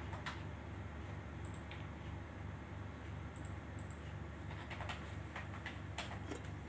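Water coming to the boil in an electric cooking pot under a glass lid: scattered ticks and clicks over a steady low hum, the clicks coming thicker near the end as the lid is taken hold of.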